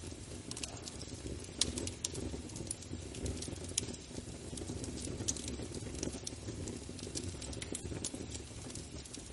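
Wood fire burning in a fireplace: a steady low sound of the flames with sharp crackles and pops at irregular intervals.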